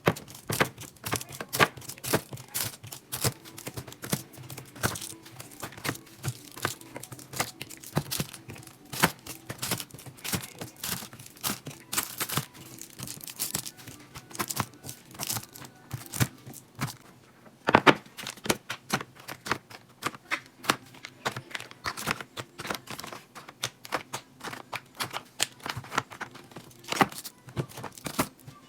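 Plastic containers and packaging being handled and set down: an irregular run of clicks, knocks and crinkling, with a few louder knocks, over faint background music.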